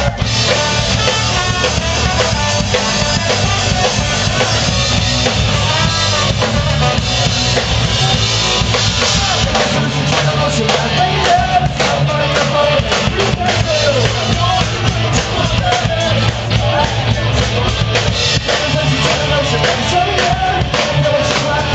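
A live rock band playing loudly, with electric guitar, drum kit and male vocals sung into microphones.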